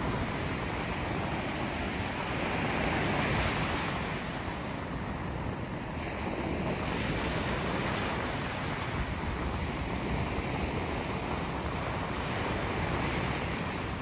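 Ocean surf breaking and washing up a sandy beach: a steady rushing sound of waves that swells louder about three seconds in and again near the end.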